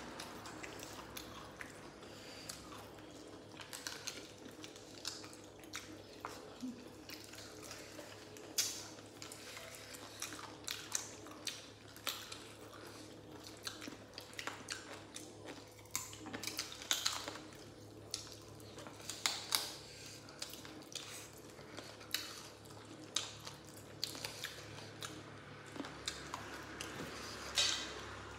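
Several people eating by hand: chewing, lip smacks and wet mouth clicks, with fingers picking at rice and meat on a banana leaf. Short irregular clicks and smacks come every second or so, a few louder than the rest.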